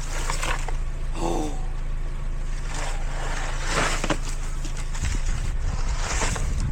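Car running, a steady low engine and road hum with a few short, louder noises at irregular moments.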